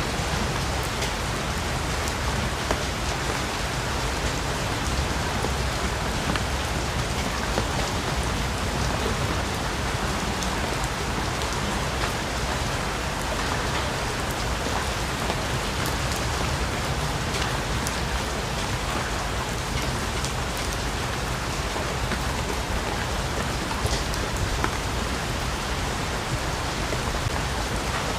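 Steady heavy rain falling on foliage, a dense even hiss dotted with many small drop strikes.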